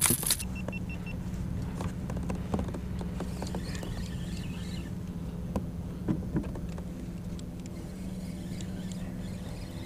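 Spinning reel being cranked steadily to retrieve a crankbait: a continuous low whirring hum with faint fine ticking. A brief loud noisy burst right at the start.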